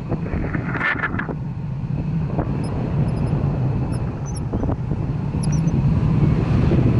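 Wind buffeting the microphone of a camera carried on a tandem paraglider in flight: a steady, loud low rumble of rushing air that swells slightly toward the end.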